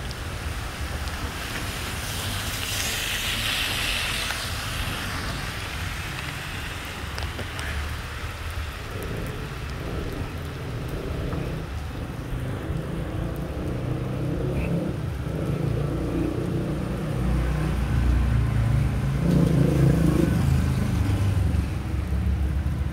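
Wet city street in rain: a steady hiss of rain with wind on the microphone, and a vehicle engine running close by, louder in the second half.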